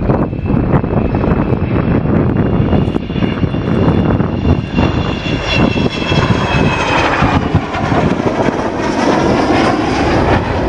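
Avro Vulcan B2 bomber's four Rolls-Royce Olympus jet engines roaring as it flies its display. Through the middle a high whine of several tones sits above the roar, then fades, and a fuller rushing roar builds from about seven seconds in.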